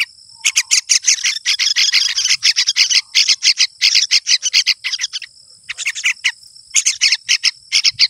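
Yellow-vented bulbul fledglings begging for food while being hand-fed: rapid runs of short, high chirps, with brief pauses about five and six and a half seconds in.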